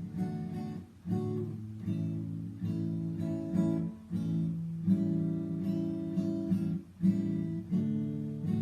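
Acoustic guitar playing strummed chords, with a break in the sound and a new chord roughly every second.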